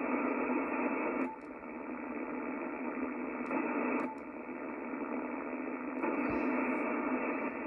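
Yaesu FTdx5000 HF receiver on 80 metres putting out steady band-noise hiss through its narrow audio filter: the excess noise that the owner blames on his loop-on-the-ground receive antenna having gone faulty. The hiss drops about a second in and again about four seconds in, then rises near six seconds, with faint clicks at the changes as the receive antenna is switched.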